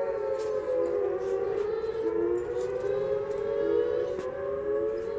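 Outdoor tornado warning siren wailing in its monthly test: several overlapping sustained tones held near one pitch, drifting slowly up and down.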